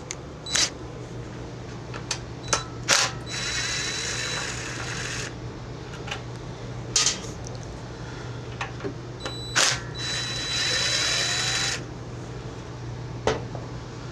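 Ratchet wrench taking 10mm nuts off a small Briggs & Stratton engine: scattered metal clicks and knocks, and two spells of rapid ratcheting lasting about two seconds each, about three seconds in and about ten seconds in.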